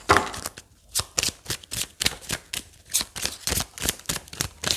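Tarot cards being shuffled and handled: a quick, irregular run of short card clicks and slaps, several a second.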